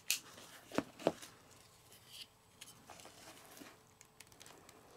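Jump starter's jumper cables being handled: two sharp clicks about a second in, then faint rustling and light handling noise.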